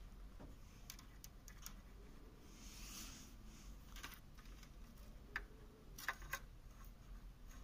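Faint, scattered small clicks and taps over quiet room tone, the loudest few near the end, from a tester screwdriver being moved over a room heater's wiring and sheet-metal housing.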